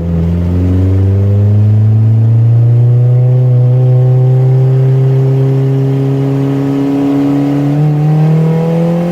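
Turbocharged car engine accelerating hard under load from a launch, its pitch rising slowly and steadily. It is making no boost: the wastegate has fallen off.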